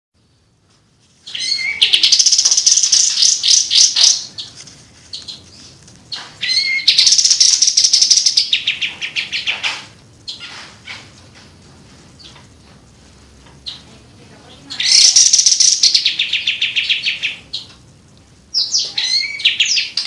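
A caged kapas tembak songbird singing loud, rapid runs of repeated high notes in four bursts of a few seconds each, with short pauses between: singing in full voice ('gacor').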